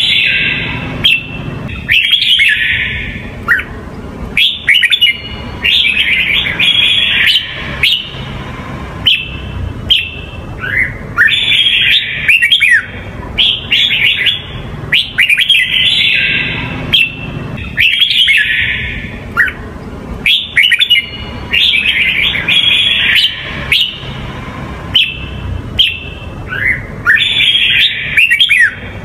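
Red-whiskered bulbul singing in a cage: bursts of quick, bright, warbling whistled phrases repeated every second or two, over a low steady hum.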